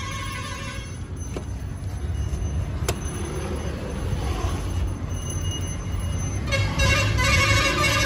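Vehicle horn tooting over a steady low rumble, with two sharp knocks in between; the horn tone returns louder for the last second and a half.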